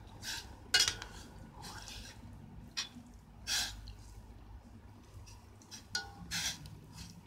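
Metal spoon scraping and clinking against the inside of a stainless steel pot while stirring diced chicken in boiling water: about seven separate strokes, the loudest clink about a second in, over a low steady rumble.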